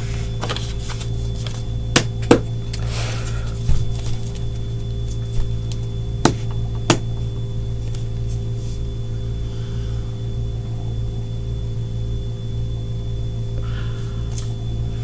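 Steady electrical hum, with a tarot deck being shuffled by hand over it: a few sharp clicks of cards in the first seven seconds and soft rustles of sliding cards, once about three seconds in and again near the end.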